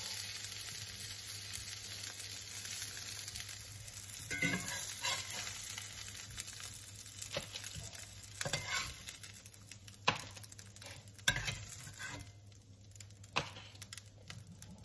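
Breaded fish fillets sizzling in hot fat in a cast-iron skillet. A metal spatula scrapes and knocks against the pan several times as pieces are lifted out. The sizzle fades toward the end as the pan empties.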